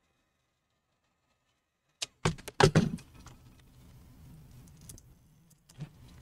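Silence for about two seconds, then a quick cluster of sharp clicks and knocks from a thin steel pry tool and hands working the adhesive-held plastic bezel off an MSI GS66 Stealth laptop screen. After that comes a faint low steady hum with a few light ticks.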